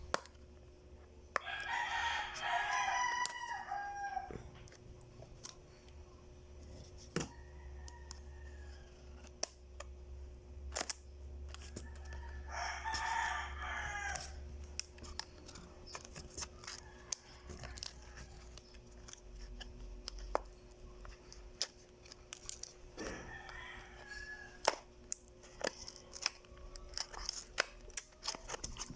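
A rooster crowing three times, each crow about two seconds long, over scattered light clicks and taps from packaging being handled.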